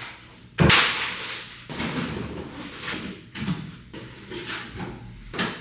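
Boxes and bags being handled and moved: a sudden loud scrape-and-knock about half a second in, then rustling and light knocks as things are shifted.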